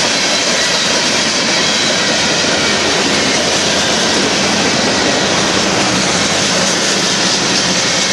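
Freight train cars (tank cars and boxcars) rolling past on steel wheels: a steady, loud rushing rumble of wheels on rail.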